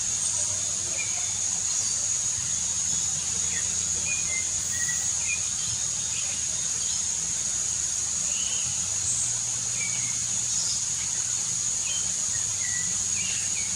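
Hauxwell's thrush singing softly: short, faint, scattered whistled notes over the steady rush of a waterfall. A continuous high-pitched steady whine runs underneath.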